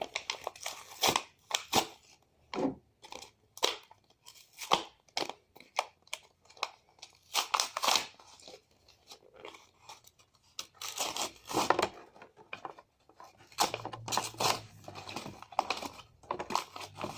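Plastic containers and packaging of craft supplies being handled: irregular clicks, scrapes and crinkles.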